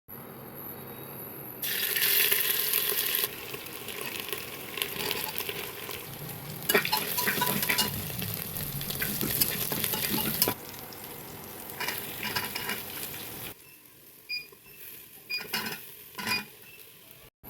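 Food sizzling in a hot pan while being stirred, with a spoon knocking and scraping against the pan. A loud burst of sizzling about two seconds in gives way to steadier sizzling and stirring, and only a few spoon knocks near the end.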